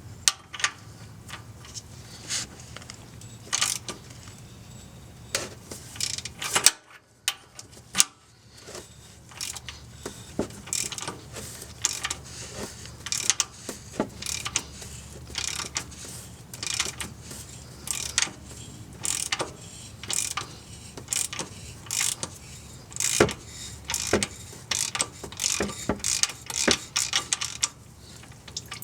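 A 3/8-inch ratchet clicks in repeated runs of quick clicks as it is swung back and forth, loosening the Prius's cartridge oil filter housing through a cap-type filter wrench. There is a brief pause about seven seconds in.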